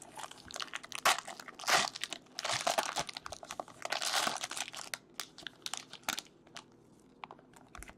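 Trading card pack wrapper crinkling and tearing as the pack is opened, in dense rustling bursts for about five seconds, then only a few light clicks and rustles.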